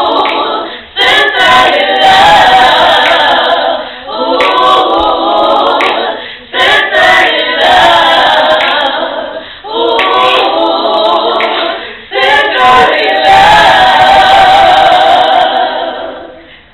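A small group of women singing a cappella in harmony, in phrases of two to three seconds with short breaks between them. The last phrase is held longest and fades out near the end.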